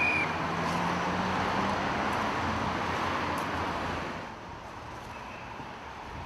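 City street traffic noise with a passing vehicle, fading to a quieter background about four seconds in.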